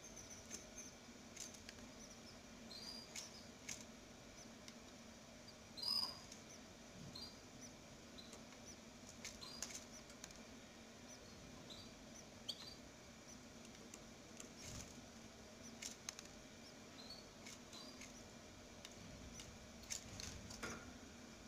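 Faint, scattered high-pitched squeaky chirps from canaries, one louder about six seconds in, over a steady low hum.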